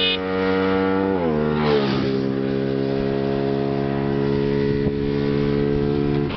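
Bajaj Pulsar 220 DTSi motorcycle engine, fitted with a K&N R1100 air filter, running at steady revs; the engine speed drops about a second in and then holds steady at the lower pitch.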